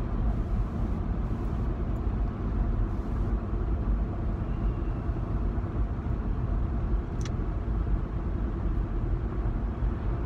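Steady low rumble of a vehicle's engine and road noise heard from inside the cabin, with a single sharp click about seven seconds in.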